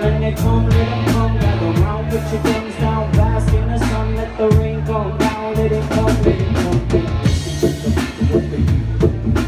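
Live band playing an instrumental passage with no vocals: drum kit keeping a steady beat under bass and sustained keyboard and horn-band lines.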